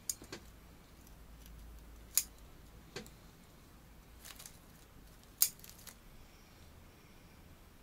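Bonsai scissors snipping shoots and leaves off a Korean hornbeam bonsai: several sharp single snips at uneven intervals, the loudest about two and five and a half seconds in.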